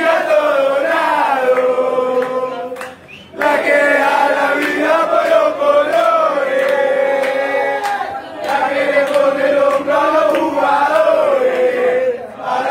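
Crowd of football supporters chanting a terrace song together in unison, with a brief break about three seconds in before the chant picks up again.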